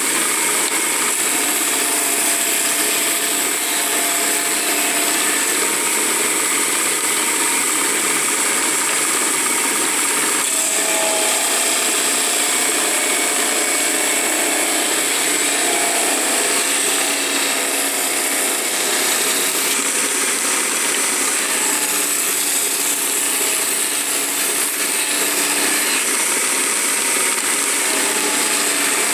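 A homemade belt-driven drum sander runs steadily, its drum of stacked wooden discs turned by an electric motor, with a constant hiss as thin wooden cage bars are pressed against the drum to flatten and true them.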